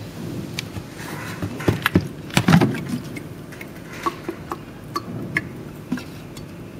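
Filtered water dripping from the pitcher's filter cartridge into the water in the jug below: small irregular plinks, with a cluster of louder knocks and clatter about two to three seconds in.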